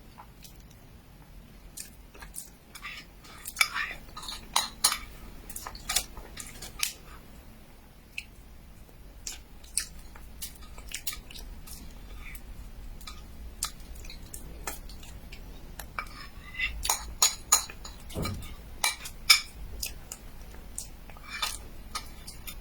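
Eating sounds: chewing of mochi, with scattered sharp clicks and clinks of cutlery against a dish that come in clusters.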